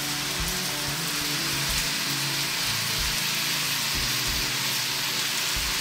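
Onions and green peppers sizzling steadily in a hot frying pan as canned tomatoes are tipped in, with a few soft low thuds as they drop.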